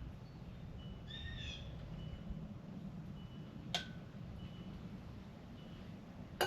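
Quiet outdoor background with a steady low rumble; a bird calls once, a brief run of quick notes, about a second in, and a single sharp click sounds a little past the middle.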